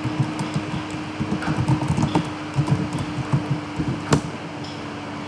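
Typing on a computer keyboard: a quick run of key presses, with one louder, sharper keystroke a little after four seconds. Under it runs a steady fan hum.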